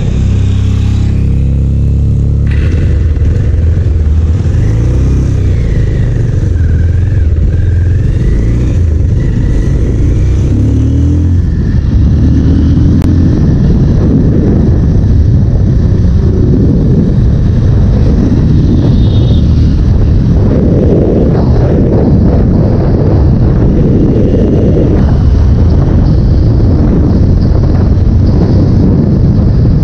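Motorcycle engine running at road speed, its steady note plain for the first ten seconds or so. About twelve seconds in, a louder rush of wind buffeting the microphone takes over and mostly covers the engine.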